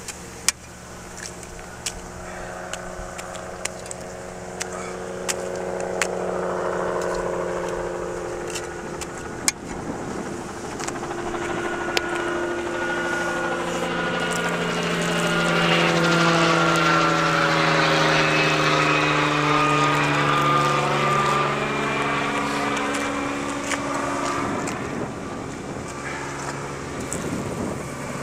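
Aircraft engine droning as it passes overhead, growing louder to a peak about two-thirds of the way through and then fading. A few sharp clicks sound over it.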